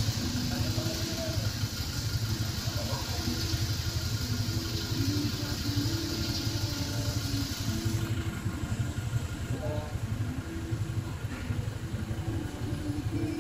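A vehicle engine idling with a steady low hum, faint voices over it. A higher hiss cuts off suddenly about eight seconds in.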